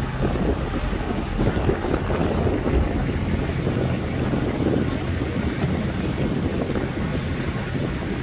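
Steady low rumble of a ferry's engine with wind blowing across the microphone on the open deck.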